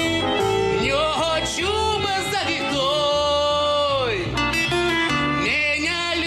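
A man singing an old Russian restaurant song, accompanied by acoustic guitar and a plucked double bass. The bass notes pulse underneath, and about halfway through the voice holds one long note that slides down at its end.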